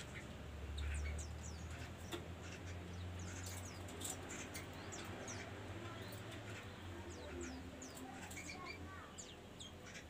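Small birds chirping again and again, quick high chirps falling in pitch, over a low steady hum that is loudest about a second in and fades out near the end.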